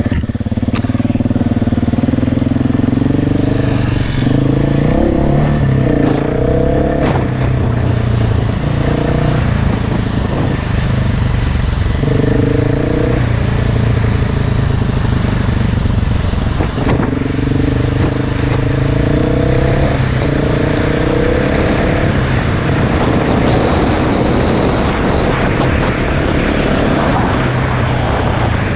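KTM enduro dirt bike engine running hard off-road, revving up and dropping back again and again, its pitch climbing and falling in repeated steps.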